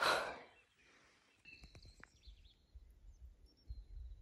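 Faint outdoor birdsong: a few thin chirps and whistles, over a low rumble of wind on the microphone. A short hiss of noise comes at the very start.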